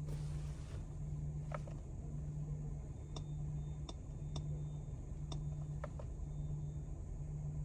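About six sharp, irregularly spaced clicks from a Mercedes-Benz W206 C-Class's steering-wheel touch controls, pressed to scroll through the instrument-cluster views. Under them runs a steady low hum in the cabin of the standing car.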